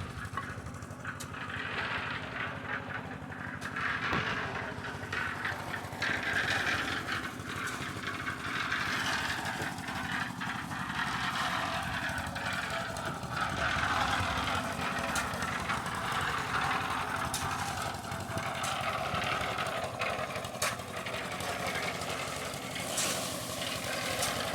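An engine running steadily, with scattered clicks and knocks over it.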